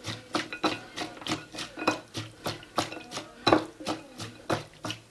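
Onion salad being mixed in a dish: a utensil clinks and scrapes against it about three times a second.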